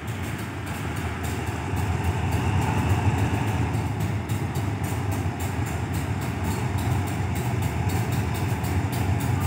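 Diesel-electric locomotive engine running with a steady low hum as it draws a train slowly into the station, growing a little louder as it comes closer.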